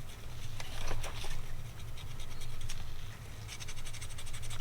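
Cotton swab scrubbing grime out of a motorcycle carburetor part: scratchy rubbing with small clicks, in quicker strokes near the end.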